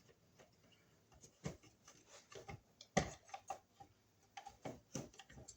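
Faint, irregular clicks and light knocks of wires and a receptacle being pushed back into an electrical wall box, the sharpest knock about three seconds in.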